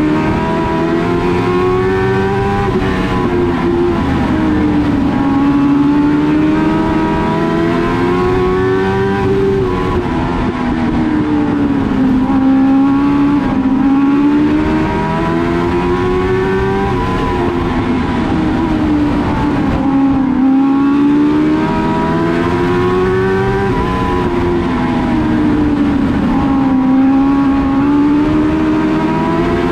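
Race car engine at racing speed, revving up and easing off in a regular cycle every three to four seconds, the rhythm of accelerating down the straights and lifting for the turns of a short oval.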